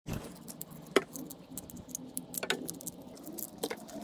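Knife cutting pieces off a horseradish root: quick scratchy ticks of the blade, with three sharper knocks as pieces drop into the plastic barrel below.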